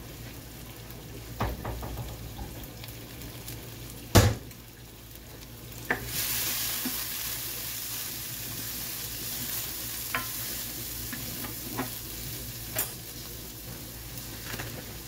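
Diced bell pepper and minced onion sizzling in olive oil in a nonstick skillet, stirred with a spoon, the sizzle louder from about six seconds in. A single sharp knock about four seconds in, and a few lighter clicks and scrapes.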